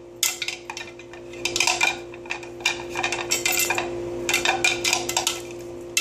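Welsh corgi licking an empty plastic food bowl, the bowl clattering in irregular runs of quick clicks and knocks, over a steady low hum.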